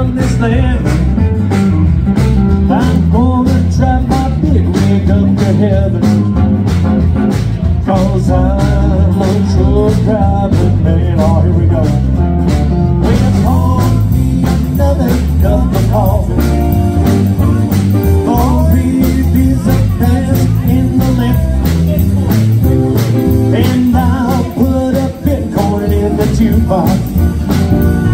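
Live country band playing: electric and acoustic guitars over a steady drum beat.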